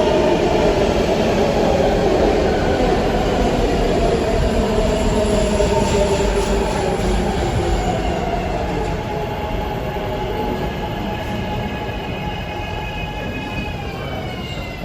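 ADtranz M4 subway train slowing into a station. The wheels rumble on the rails, and a whine of several tones slowly drops in pitch as it decelerates, dropping more steeply near the end as the train comes to a stop. The overall sound gradually fades.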